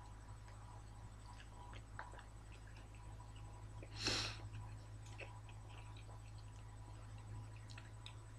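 Faint sounds of a person eating a lamb yiros wrap: scattered small clicks from chewing and the paper wrapping over a steady low hum, with one short breathy puff about four seconds in.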